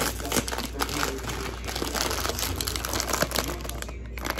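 Plastic Nongshim Shin Black instant-noodle packet crinkling as it is handled and turned over: a run of crackles that eases off near the end.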